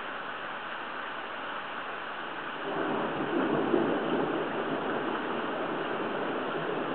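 Hurricane wind and rain on a waterproof camera's microphone: a steady rush that swells louder about three seconds in and stays up.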